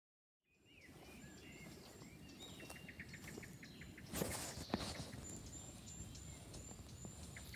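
Faint outdoor birdsong: small birds chirping in quick repeated high notes over a steady background hiss. It starts after half a second of silence, and a brief louder noise comes about four seconds in.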